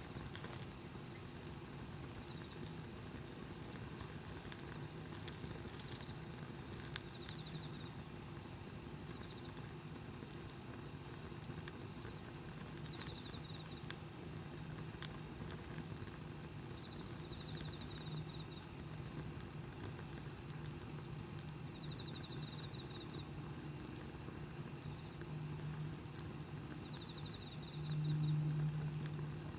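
Wood campfire crackling quietly with an occasional sharp pop, with faint pulsed insect chirps recurring throughout. A low hum swells near the end.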